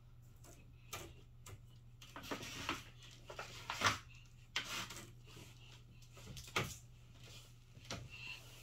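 Scattered light knocks and short rustles of small things being handled, over a steady low hum.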